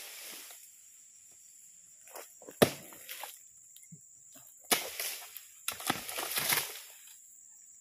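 Long-handled harvesting blade chopping into the frond bases of a young oil palm: a series of sharp, irregular cutting strikes, the loudest about two and a half seconds in. Around six seconds in, quicker strikes run into a rustle of palm leaves as a cut frond comes away. This is fronds being cut to reach the fruit bunches.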